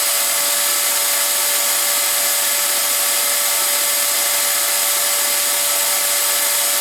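Ryobi shop vacuum running steadily to supply suction to a Festool vacuum clamp: a constant rushing hiss with a steady motor whine.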